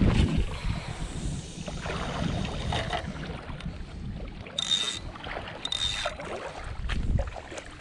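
Wind rumbling on the microphone. About four and a half and six seconds in there are two short high hissing bursts with a thin whistle.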